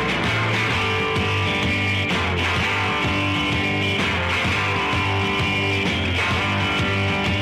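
Recorded psychedelic punk rock song with strummed guitar over bass, playing steadily at full level.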